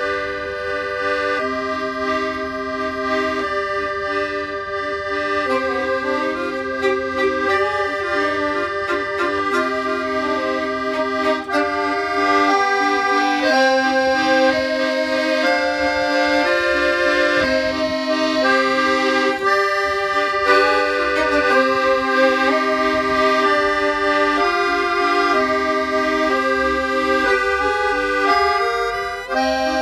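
Background accordion music: a tune of held notes and chords that change every second or so.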